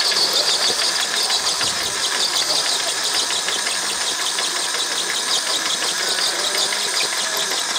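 Electric motor and geared drivetrain of a 1/10-scale RC trail truck working hard under load, a steady high whine over a dense spray of dirt from its spinning tyres as it drags a heavy pulling sled.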